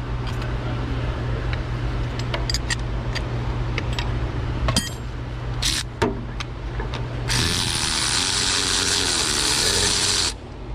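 Light clicks and knocks of tool work on a spark plug, then an electric ratchet runs for about three seconds, backing a spark plug out of the engine.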